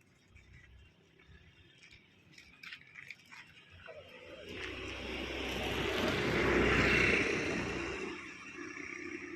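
A vehicle passing close by, its engine and road noise swelling over a few seconds, loudest about seven seconds in, then fading.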